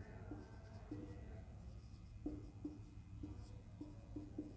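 Whiteboard marker writing on a whiteboard: faint, short, irregular strokes and taps as the letters are drawn.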